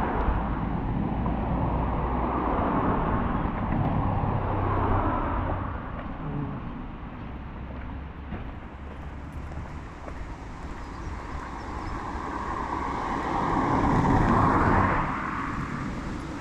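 Road traffic: cars passing on a nearby road, their sound swelling and fading, with the loudest one going by near the end.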